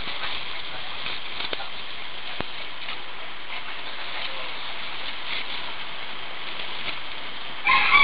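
Steady hiss-like noise with a few faint clicks, then a short, loud pitched call breaking in near the end.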